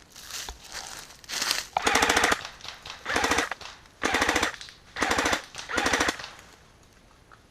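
Airsoft electric gun firing short full-auto bursts, about six of them, roughly one a second, each a rapid rattle of shots lasting about half a second.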